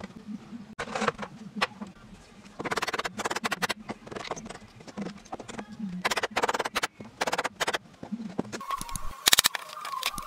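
Hammer knocking on a wooden pallet to loosen and pry off its slats, in quick groups of sharp knocks. The knocks come over a low steady hum. From about two-thirds of the way through, a higher steady tone with dense ticking comes in.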